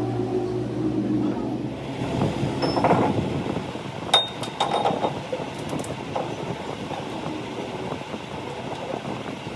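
A workshop machine motor hums steadily, then stops about two seconds in. Scattered metal clinks and knocks follow, one of them ringing briefly.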